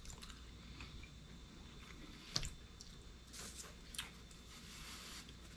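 Faint chewing of a mouthful of pizza, with a few soft mouth clicks and smacks, the sharpest about two and a half seconds in.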